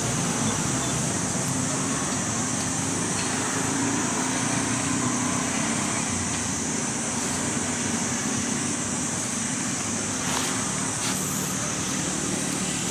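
Steady outdoor background noise: a continuous high-pitched buzz over a low, even rumble like road traffic, with no clear calls standing out.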